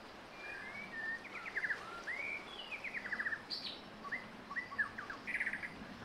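Birdsong: a run of varied phrases, short whistled and slurred notes broken up by quick rattling trills, one after another over a faint outdoor hiss.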